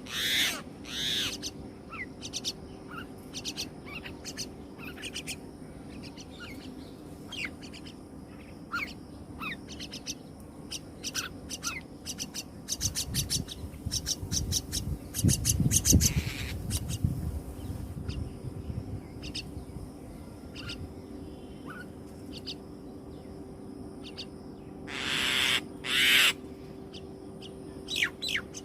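Common myna chicks calling: many short, harsh calls in irregular bursts, louder in a cluster near the end, with a loud low rumble about halfway through.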